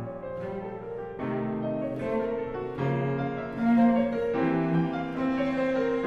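Background instrumental music in a slow classical style, with notes held for a second or more over piano.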